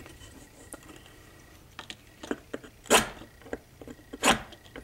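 Small clicks and taps of a steel bracket piece and a metal scribe being handled and positioned on a workbench for marking. Two louder short sharp sounds come about three and four seconds in.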